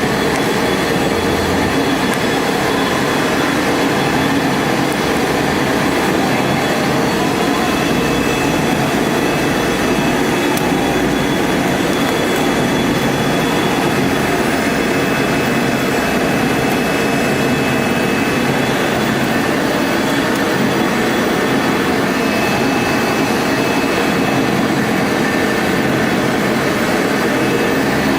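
CNC router cutting KT foam board: a steady, loud mechanical noise with a faint high spindle whine above it.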